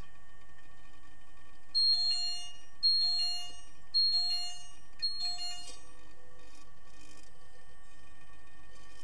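Underwater hockey game buzzer heard through the water: four high electronic beeps about a second apart, the kind of signal used to stop play. A steady faint hum of the pool machinery runs underneath.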